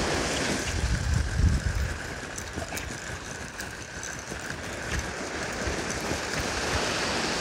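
Steady wash of surf breaking on a sandy beach, with wind rumbling on the microphone, strongest about a second in.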